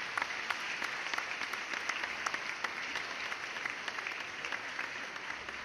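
Applause: many hands clapping steadily, fading out near the end.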